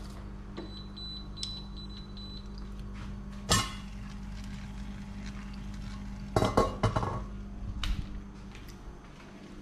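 Kitchen utensils and dishes clinking: one sharp clatter about three and a half seconds in, then a quick cluster of clinks around six and a half to seven seconds, with a few lighter ticks between. A steady low hum runs underneath.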